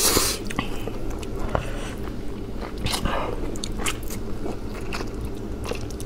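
Mouthful of noodles being slurped and chewed close to the microphone: a hissing slurp at the start, then wet chewing with many small smacking clicks.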